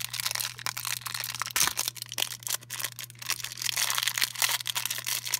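Thin plastic wrapper crinkling and tearing as fingers peel it open, a dense run of crackles, over a steady low hum.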